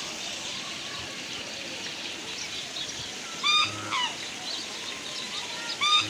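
Waterfowl honking: short, loud, pitched calls, two a little past the middle and one near the end, over a steady background of many small birds chirping.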